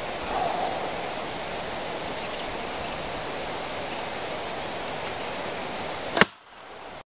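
A steady hiss of outdoor background noise while an archer holds at full draw. About six seconds in comes a single sharp crack as the bow is shot and the arrow released.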